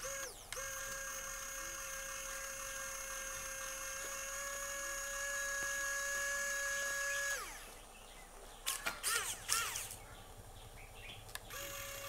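Small electric motor and gearbox driving a cardboard model grader, running with a steady whine. About seven seconds in it stops, its pitch dropping as it winds down. A short flurry of sliding chirps follows, and the motor whine starts again near the end.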